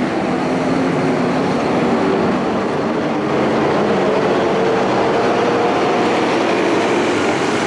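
Scania diesel engine of a Marcopolo Paradiso 1800 DD double-decker coach running as the coach pulls away and passes close by, a steady drone with a faint whine that rises in pitch as it gathers speed.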